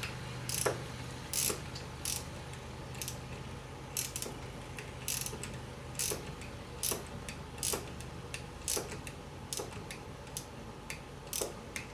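Socket ratchet clicking in short strokes, about one or two clicks a second, as it tightens the 1/2-inch nut that holds a leaf blower's fan; that nut working loose causes the blower's rattle at idle.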